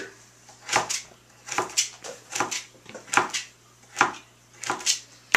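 A kitchen knife slicing carrots on a cutting board: a slow, even series of sharp knocks, a little more than one a second, some in quick pairs, as each slice is cut through to the board.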